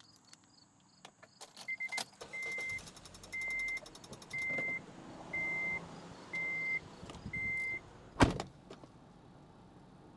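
A car's warning chime beeping seven times at one steady pitch, about once a second, after a few clicks; then a car door is shut with a loud slam.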